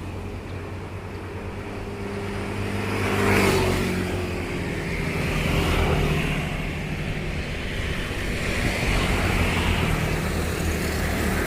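Motorcycle engine running through a Lone Rider Akap 8 carbon aftermarket silencer, idling with brief revs about three and six seconds in and a lighter one near the end.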